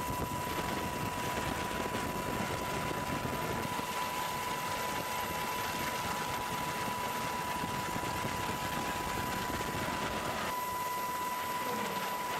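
Steady aircraft turbine noise: an even rush with a constant high whine, shifting slightly in character about ten seconds in.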